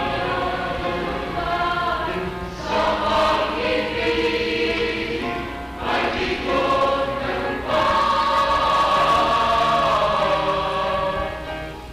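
A choir singing a Tagalog love ballad in harmony, holding chords through phrases with short breath breaks between them.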